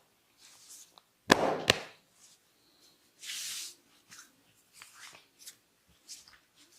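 Hands working on a client during a barber's head massage: two sharp snaps close together about a second in, with a short rush of noise between them, then a brief hiss a little later, over light rustling of hands on hair and skin.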